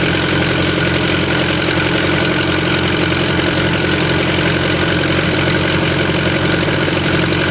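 Allis-Chalmers H3 crawler dozer's carburetted engine running steadily, freshly started on the choke.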